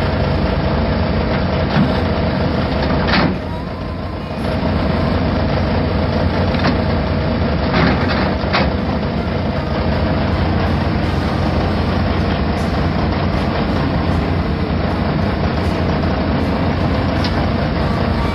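Steady, loud mechanical rumble, with brief knocks about three seconds and eight seconds in.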